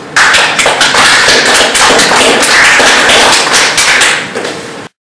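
Audience applauding loudly, a dense patter of many hands clapping that starts suddenly and is cut off abruptly near the end.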